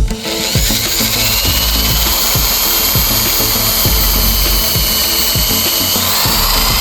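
A power tool's electric motor, most likely a drill, whines steadily, its pitch rising slightly near the end, over background music.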